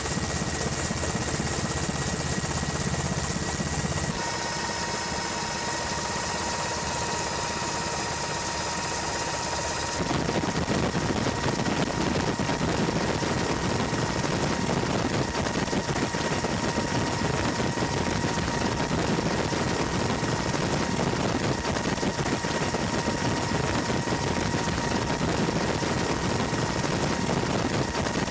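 Helicopter engine and rotor noise as heard from aboard the helicopter: a steady, dense roar with a thin high whine over it. The sound changes character twice, about 4 and 10 seconds in.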